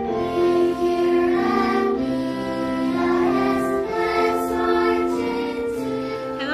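Intro music: a melody of long held notes, each sustained for about half a second to a second.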